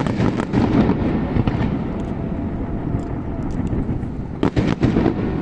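Fireworks show: a sharp bang at the start, then a run of bangs with a low rolling rumble, and another quick cluster of bangs about four and a half seconds in.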